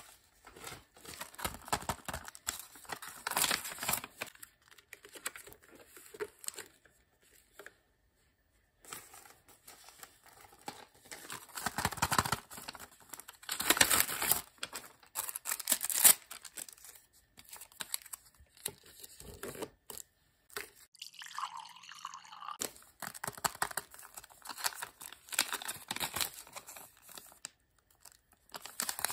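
Paper crinkling and rustling in irregular bursts as paper cutouts, a small paper bag and a folded paper note, are handled, opened and unfolded, with short pauses between.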